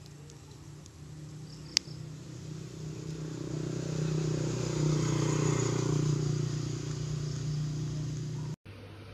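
A steady low engine hum that grows louder toward the middle and stops abruptly near the end, with a single sharp click a couple of seconds in.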